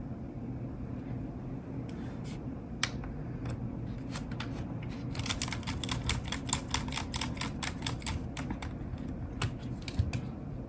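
Small, light clicks and ticks of hand work on laptop parts, sparse at first, then a quick run of many clicks from about five seconds in to about nine.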